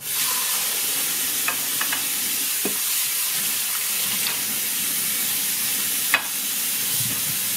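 Tap water running steadily as cucumbers are washed under it, coming on abruptly, with a few faint light knocks from handling.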